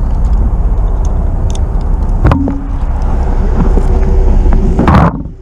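Handling noise of a small action camera being lifted and carried: a steady low rumble and rubbing with a sharp knock a little over two seconds in, then a louder scrape near the end as it is set down on pavement.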